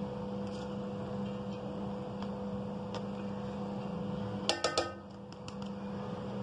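Rice being tipped and spread in an aluminium cooking pot over a steady low hum; about four and a half seconds in, a quick run of knocks with a short metallic ring as the pot is struck.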